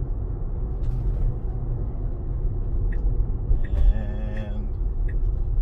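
Steady low road and tyre rumble inside the cabin of a Tesla Model Y as the electric car drives along. About four seconds in, a short sound with a wavering pitch sounds over the rumble for about a second.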